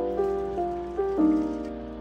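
Soft background music: a slow keyboard melody, a new note struck and fading every half second to a second. Beneath it, faintly, water pours from a kettle into a glass teapot.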